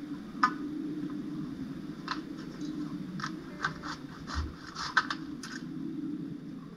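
A long pole saw working among cedar branches overhead: irregular sharp clicks, snaps and scrapes as the blade and pole catch on twigs, over a steady low background hum.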